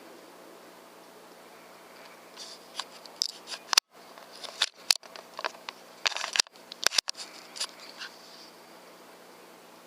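A quick, irregular run of small sharp clicks and light rattles lasting about six seconds, starting a couple of seconds in, with the sound cutting out briefly several times.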